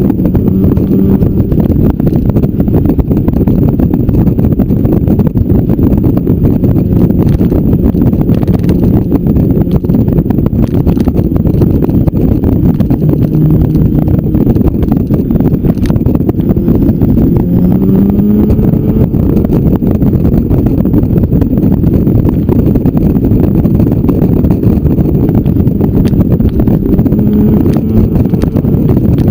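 Motorcycle riding at speed, heard from the bike itself: heavy wind rumble over the microphone with the engine's note underneath, its pitch rising a few times as it speeds up.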